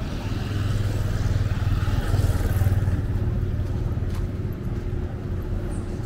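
Motor vehicle passing close by on a city street, its engine growing louder for a couple of seconds and then fading, over steady traffic noise.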